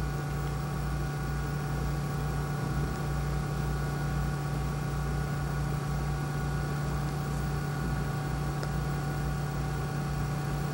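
A steady hum with a few fixed tones and a hiss behind it, with no change in level.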